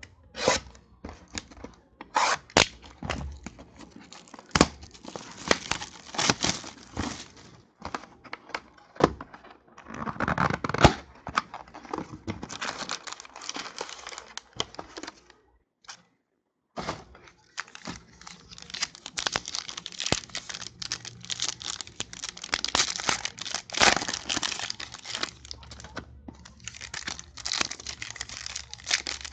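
Plastic shrink-wrap being torn off a sealed Panini Crown Royale trading card box, then the cardboard box opened and foil card packs handled: a run of tearing and crinkling plastic with light cardboard clicks and taps, broken by a brief silence a little past halfway.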